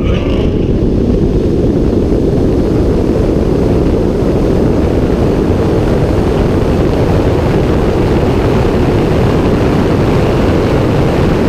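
Steady loud rush of wind and road noise from a Tesla Model S P100D on a quarter-mile drag pass, with no engine note. It comes in just after a brief rising whine.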